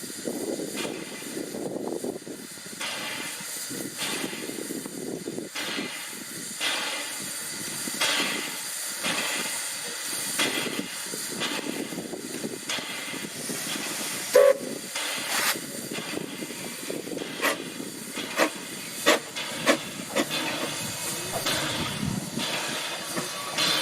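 Narrow-gauge steam locomotive hissing steam, with frequent sharp clanks and knocks.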